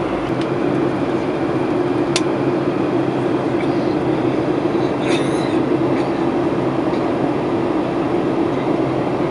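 Steady cabin noise inside a Boeing 737-800: the CFM56-7B engines and airflow make a constant rushing drone with a strong low hum. A single sharp click comes about two seconds in.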